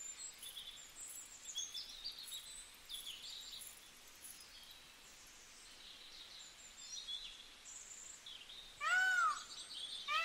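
Faint birdsong of short high chirps, then near the end a cat meows, a high call that rises and falls in pitch.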